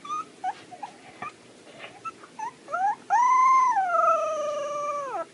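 Husky puppy giving a few small squeaky yips, then, about three seconds in, one long howl that holds and slowly falls in pitch before dropping away.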